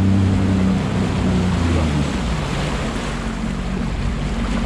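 Jet ski engine running under throttle with water rushing along the hull. About two seconds in the throttle eases off and the engine note falls away, leaving water and wind noise.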